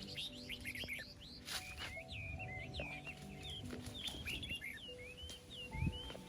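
Small birds chirping over and over in quick, short calls, over soft background music with long held notes. A low thump sounds near the end.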